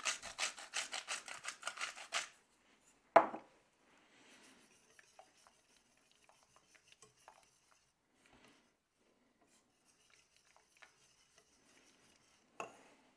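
Salt mill grinding, a fast run of rasping clicks for about two seconds, then a sharp knock. After that, faint scraping and light clicks of a wire whisk stirring a thick cream sauce in a stainless steel pot, with another knock near the end.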